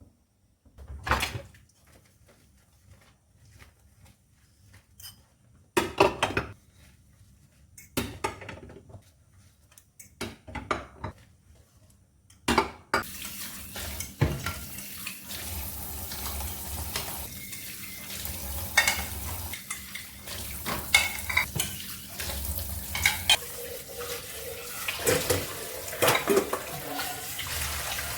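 Dishes, pots and utensils clattering in separate knocks, then from about halfway in a kitchen tap running steadily while dishes and cutlery clink: washing up at the sink.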